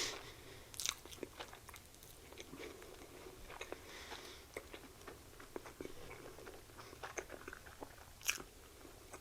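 Close-mic chewing of a soft, unbreaded chicken sandwich: faint wet mouth clicks and smacks, with two louder smacks about a second in and near the end.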